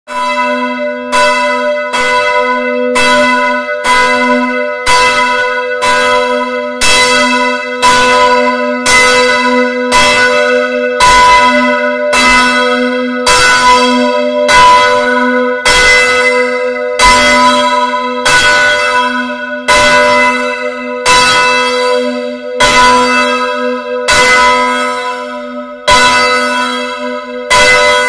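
A church bell struck over and over at an even pace of about one stroke a second, loud and close at hand in the belfry. Each stroke rings on into the next over a steady low hum.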